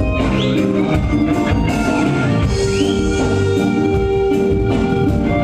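Reggae band playing live during a sound check: drums and held instrument notes, with one long steady note through the middle.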